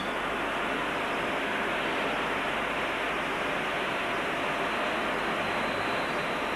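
A steady rushing noise with no distinct events or pitch, even throughout.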